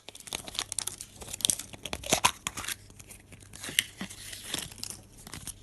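Surprise egg's wrapping being torn open and crinkled by hand, a run of irregular crackles and crunches.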